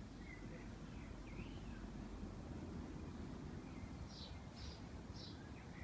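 Faint birdsong over a steady low background rumble: a few wavering chirps in the first two seconds, then a short high note repeated about twice a second.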